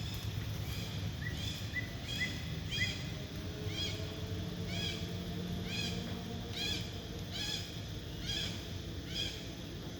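A monkey giving a long series of short, high, chirp-like calls, each rising and falling. They come quickly at first, about three a second, then slow to roughly one a second.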